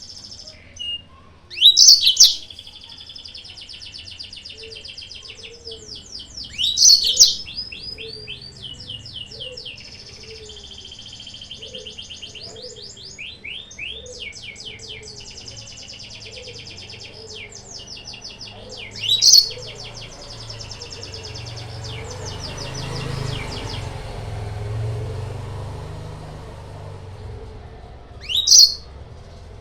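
Yellow-fronted canary (Mozambique) song: a continuous stream of fast high trills and twitters, cut through four times by much louder sharp sweeping calls.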